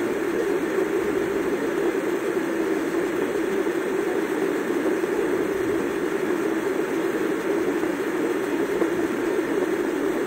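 A steady, even rushing noise inside a car's cabin, with no change in level or pitch.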